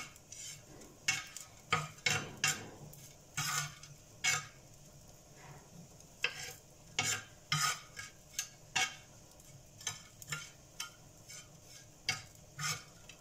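A metal blade scraping and clinking on an iron tawa as small chopped chicken pieces are stirred and mixed in, in short irregular strokes about once or twice a second.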